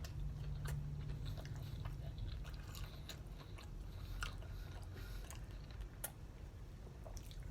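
A person chewing spicy chicken wings close to the microphone: soft, faint mouth clicks and crackles scattered through, over a low steady hum.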